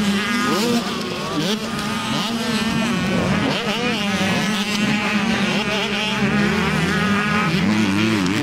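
Several 85 cc two-stroke motocross bikes revving hard, their engine notes rising and falling and overlapping as they race over the jumps, over a steady low drone.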